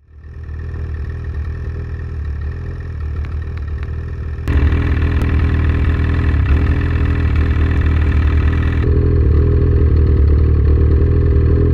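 Ski-Doo Summit 850 E-TEC two-stroke twin engine running steadily at low revs. It gets louder abruptly about four and a half seconds in and changes tone abruptly again near nine seconds, from where it runs through the stock exhaust.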